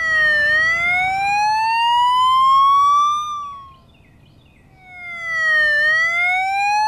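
Police car siren: a wail that dips briefly, then climbs slowly for about three seconds before dying away, then starts its rise again a second or so later.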